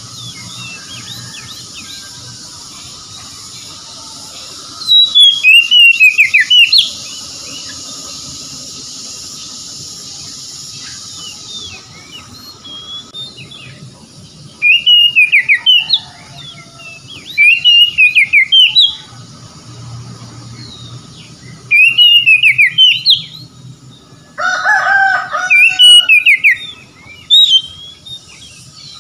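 Oriental magpie-robin singing: about six loud phrases of clear, quickly gliding whistles, each one to two seconds long, with pauses of a few seconds between them. A steady high hiss runs under the first twelve seconds, and lower notes join the phrase about three-quarters of the way in.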